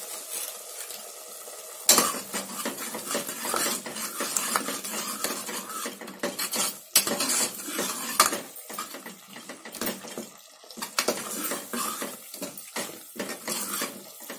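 Steel ladle scraping and clanking against the sides and bottom of an aluminium pressure cooker as thick tomato-onion masala is stirred and sautéed with freshly added spice powders. The stirring starts about two seconds in and goes on in quick, irregular strokes, with a couple of sharper knocks about halfway through.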